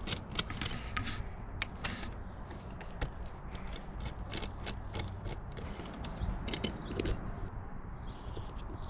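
A ratchet wrench clicking in short, irregular runs as bolts are undone on the motorcycle's bodywork.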